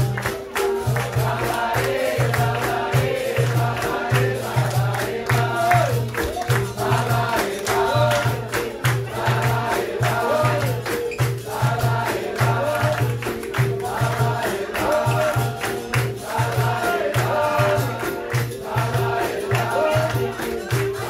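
Capoeira roda music: group call-and-response singing over a pandeiro, with a steady beat from the berimbau and atabaque.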